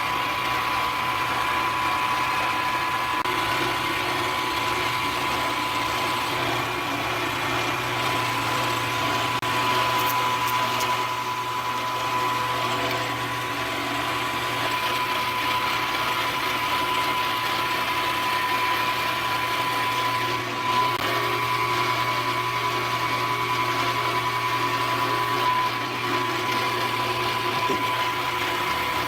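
Milling machine running a solid carbide end mill at about 1520 RPM, cutting a slot into a drill press spindle: a steady motor hum with a high whine over it.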